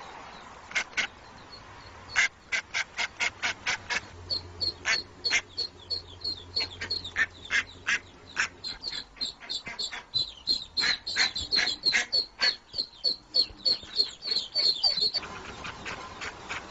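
Hen mallard quacking insistently, a long run of short, loud quacks at about three a second starting about two seconds in: the mother duck calling for her ducklings.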